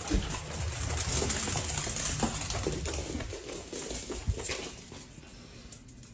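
A small dog's claws and paws clicking and tapping on a hardwood floor as it runs about. The taps come in quick, irregular runs and grow fainter after about four seconds.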